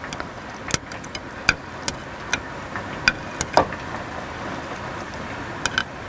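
Light, sharp clinks and taps of kitchen utensils and dishware, about ten scattered through, over a steady background hiss, as ingredients are added to a soup pot.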